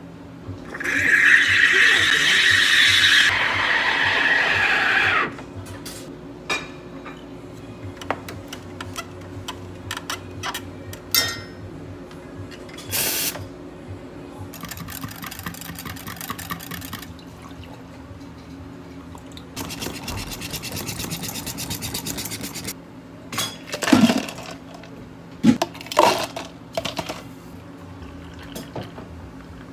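Drink-making at a cafe counter. First, milk is poured from a carton into a stainless-steel pitcher, a loud pour of about four seconds. Scattered clicks and clatter follow at the espresso machine, with sharp knocks later on, and near the end soda is poured over ice into a plastic cup, all over a steady low hum.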